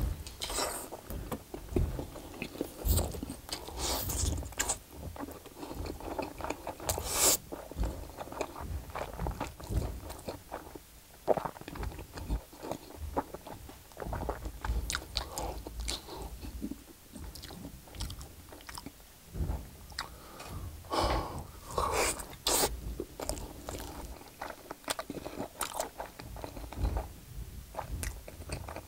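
Close-miked biting and chewing of a whole block of canned Spam, with irregular sharp mouth clicks and smacks.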